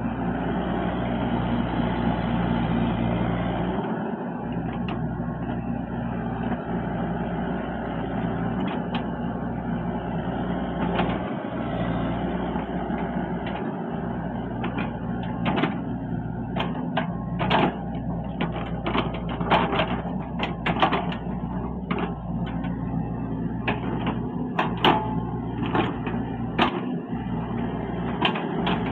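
XCMG XE55DA mini excavator's diesel engine running steadily under hydraulic load while the bucket levels loose soil. It is a little louder in the first few seconds, and in the second half a quick run of sharp clanks and knocks comes from the working machine.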